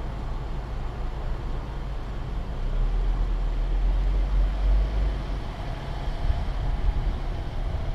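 Car engine and tyres at low speed as the car creeps forward: a steady low rumble that swells for a couple of seconds in the middle and again near the end.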